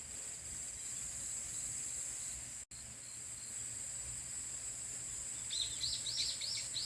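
Steady high-pitched trilling of insects, with a small bird starting a quick run of chirps about a second before the end. The sound cuts out for an instant near the middle.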